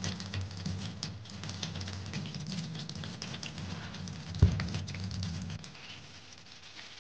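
Clothes being handled and rustled, with scattered light clicks and one sharp thump about four and a half seconds in.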